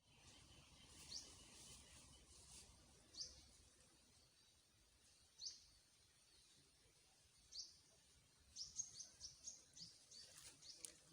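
A bird chirping faintly: single short rising calls spaced about two seconds apart, then a quick run of calls near the end.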